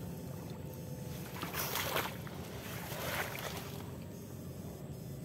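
Water sloshing and splashing in shallow swamp water, with two louder surges of splashing about two and three seconds in.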